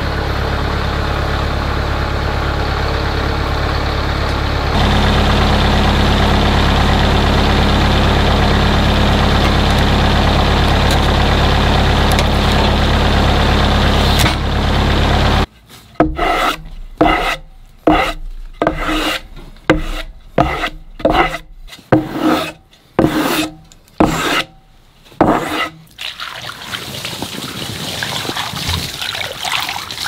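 A small engine runs steadily, gets louder about five seconds in, and cuts off suddenly about halfway through. A hand brush then sweeps across the freshly sawn black walnut slab in quick rasping strokes, one or two a second. Near the end, water is poured from a jug onto the wood.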